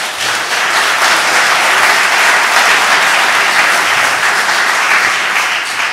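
Audience applauding: dense clapping from a large crowd that starts at once and holds steady, easing slightly near the end.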